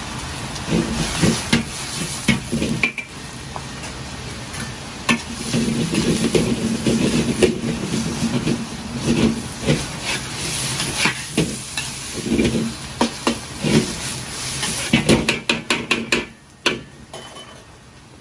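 Noodles and vegetables being stir-fried in a large iron wok over a gas wok burner: steady sizzling and burner noise with irregular clacks and scrapes of chopsticks and a metal ladle against the wok. A quick run of clacks comes a few seconds before the end, then the sound drops sharply.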